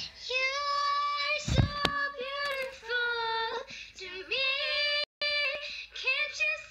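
A girl singing in a high voice, holding long notes, with a thump about a second and a half in.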